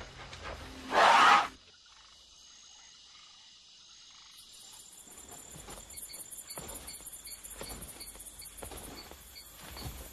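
A loud, short whooshing burst about a second in, then, after a quiet spell, insects chirring from about four and a half seconds in: a high, rapidly pulsing sound with soft ticks about twice a second.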